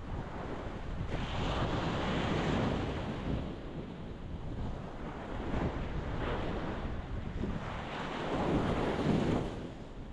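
Ocean waves breaking against a rocky shore: a steady wash of surf that swells three times, loudest near the end.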